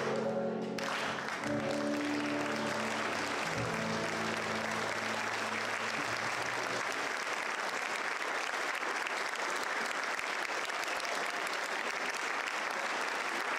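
Audience applauding as a song ends, with the last sustained notes of the music carrying on under the clapping and fading out about halfway through, leaving steady applause.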